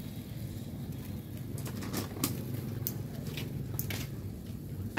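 Scattered sharp clicks and taps of kitchen scissors and utensils, most of them between about two and four seconds in, over a low steady hum.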